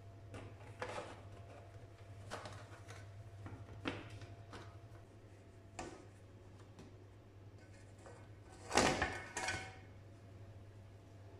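Light knocks and taps of a plate and a fluted metal tart pan being handled as a sponge cake is turned out onto the plate, with a louder clatter about nine seconds in as the pan is lifted off.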